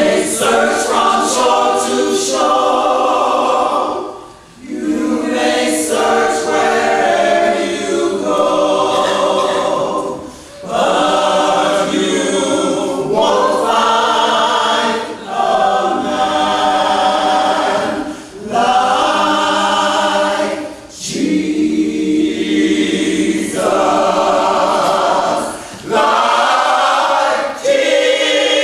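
Gospel choir singing a cappella in phrases a few seconds long, with short breaks between them.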